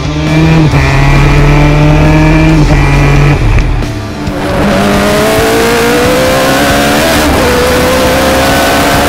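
Onboard sound of a racing engine at high revs: a steady, loud note for the first few seconds, then a Formula 1000 car's motorcycle-derived engine accelerating, its pitch climbing, dropping at an upshift about seven seconds in and climbing again.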